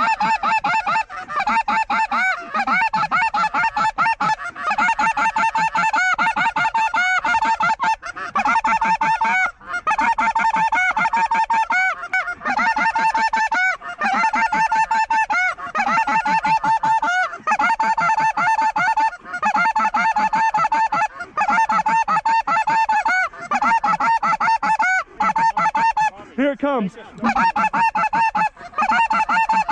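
A large flock of geese honking overhead: a dense, continuous chorus of overlapping calls with only brief lulls.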